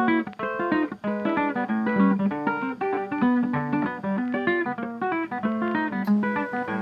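Background music: an acoustic guitar playing quick plucked notes.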